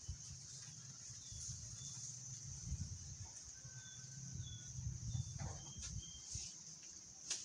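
Outdoor ambience with a steady high-pitched insect buzz and a few short bird chirps over a low wind rumble on the microphone. A few sharp clicks cut through, the loudest near the end.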